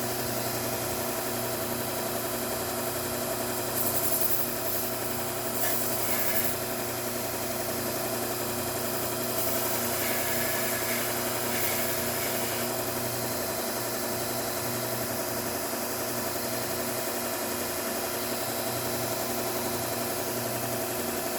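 Bucktool slow-speed belt grinder running with a steady motor hum. A scissor blade is pressed to the belt in short passes, adding a hiss of grinding about four and six seconds in, and again for a couple of seconds from about ten seconds.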